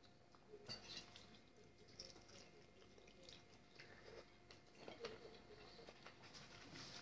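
Faint, close chewing and lip-smacking of a person eating fried chicken, with scattered small wet clicks and smacks.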